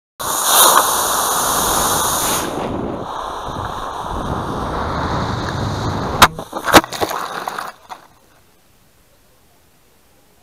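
Model rocket's cluster of black-powder motors igniting and burning with a loud rushing roar for about two seconds, heard from a camera riding on the rocket. Then comes a softer rush of air over the airframe, and two sharp bangs about half a second apart as the ejection charges fire.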